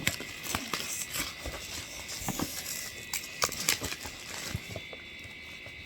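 Rustling and tapping of the kettle's cardboard and plastic packaging being handled and opened, with scattered clicks that die away about five seconds in, over a faint steady high tone.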